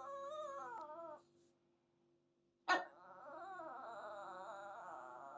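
Dog whining in long, wavering, squeaky whines, begging to be let up onto the sofa. One whine trails off about a second in; a second begins with a sharp yelp nearly three seconds in and carries on almost to the end.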